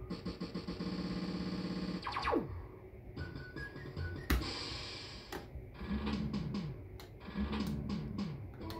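Fruit machine's electronic sound effects: a fast-pulsing synth tone for about two seconds, a quick falling swoop, a sharp click about four seconds in, then two short runs of falling bleeps as a reel spins.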